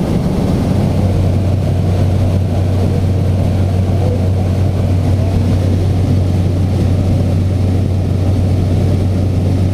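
Jump plane's engine and propeller droning heard from inside the cabin, a loud, steady low hum with noise over it.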